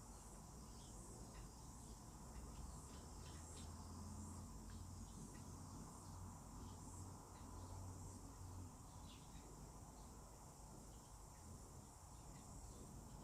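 Near silence: faint room tone with a low hum that stops about nine seconds in, and a few faint soft ticks.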